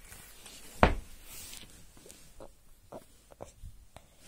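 Handling noise as plush toys are shifted about close to the microphone: one sharp thump about a second in, then a brief rustle and a few soft taps.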